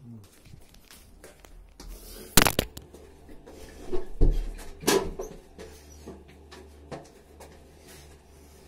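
Door and phone handling noise: sharp clicks about two and a half seconds in and a cluster of knocks and bumps around four to five seconds in, then a faint low steady hum.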